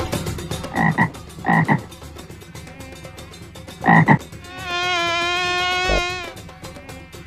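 A frog croaking three times in short, loud croaks, about a second in, half a second later, and again near four seconds, followed by a steady buzz lasting about a second and a half.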